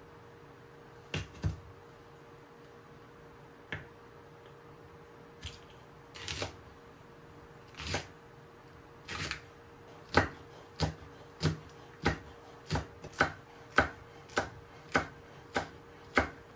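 Kitchen knife cutting vegetables on a wooden cutting board: a few scattered cuts at first, then a steady run of slices about one every 0.6 seconds through the second half, as green onion and green chili peppers are cut.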